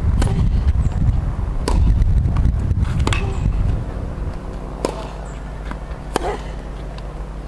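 Tennis serve and rally: a sharp pop of racket strings on ball about every one and a half seconds as the ball is hit back and forth.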